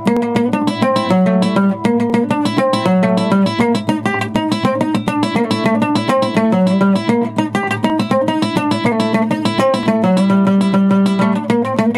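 Venezuelan bandola llanera played solo, a fast run of rapidly picked melody notes over recurring bass notes on its four nylon strings.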